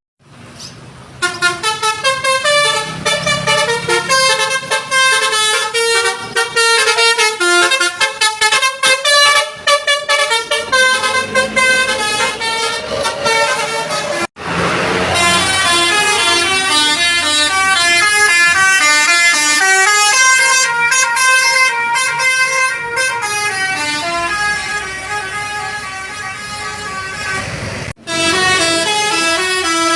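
Indonesian tour buses' 'basuri' telolet horns, multi-tone musical horns playing quick stepping melodies. Three separate horn performances follow one another, each breaking off abruptly, about fourteen seconds and again about twenty-eight seconds in.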